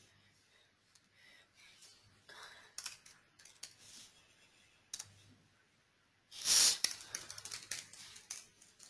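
Computer keyboard keystrokes, tapped in short runs while text is typed into a form. There is a brief louder rush of noise about six and a half seconds in.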